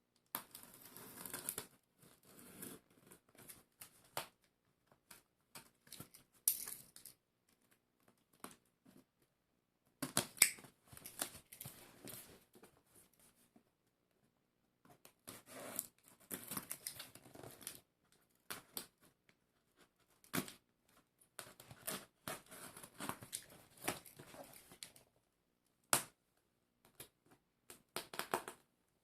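A cardboard parcel and its packing being opened by hand: crackly rustling, tearing and sharp clicks, in spells of a few seconds with quiet gaps between them.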